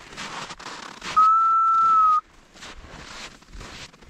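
One long, steady whistle blast lasting about a second, from a hunter signalling his English pointer gun dogs. Crunching footsteps on snow and rock come before and after it.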